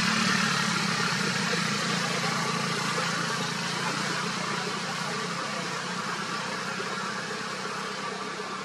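A motor vehicle's engine running with a steady low hum, slowly fading.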